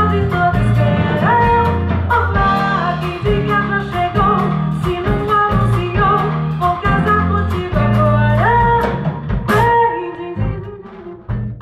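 Live band music with a female singer, over a strong bass line and percussion. About ten seconds in the music drops away, leaving lighter percussion hits.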